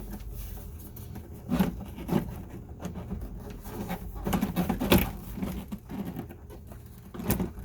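Mercedes W124 rear door panel being pressed and slid into place against the door, with irregular knocks, taps and rubbing as its clips are worked into their holes.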